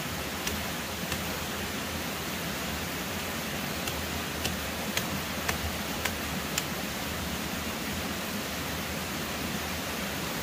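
A steady, even rushing hiss, with about eight light, sharp clicks in the first seven seconds as a long knife cuts and strips the sheath from a bamboo shoot.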